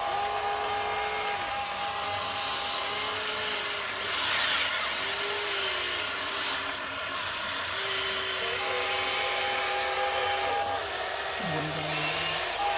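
The small electric motor of an RC excavator whining, its pitch rising and dipping in short repeated arcs as the machine works, with a brief louder rushing noise about four seconds in.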